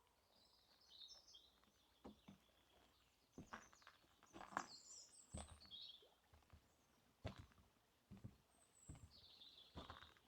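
Faint footsteps on a forest path, roughly one step a second, with small birds chirping high and on and off.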